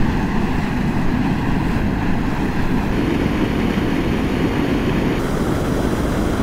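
Wind buffeting the microphone: a steady, loud low rumble of noise with no pitch or rhythm.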